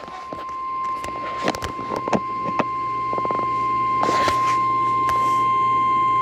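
Emergency alert attention tone: one steady, high-pitched tone that swells louder over the first few seconds and then holds, over a low hum and a few scattered clicks. It announces a flash flood warning.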